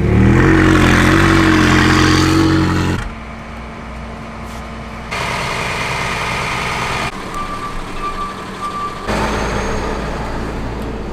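Car engine running, heard in several short clips cut together, loudest for the first three seconds, where the engine note rises briefly and then holds.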